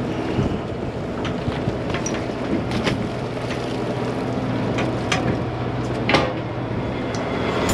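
Steady low engine hum from a party boat, with scattered sharp clicks and knocks over it.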